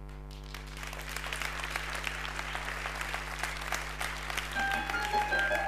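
Audience applauding, swelling from about half a second in, over a steady electrical mains hum. Piano music comes in near the end.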